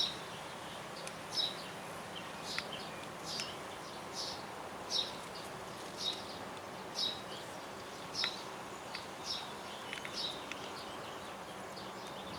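A small bird calling: a short, high chirp repeated about once a second, over faint steady background noise.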